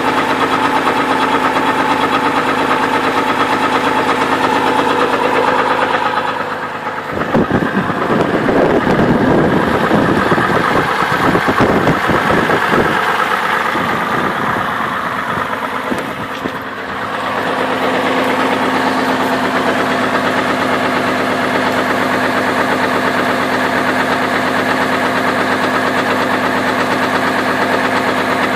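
2002 Chevrolet Trailblazer's 4.2-litre inline-six running with the accessory belt removed and a knock that the owner takes for rod knock, since the belt is off to rule out the water pump. From about seven seconds in, a rough, irregular noise covers the engine for several seconds before its steady running returns.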